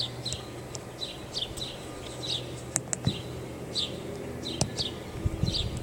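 Birds chirping in the background: short, high, falling chirps about twice a second. A few sharp clicks come in a quick run about three seconds in and once more about a second and a half later.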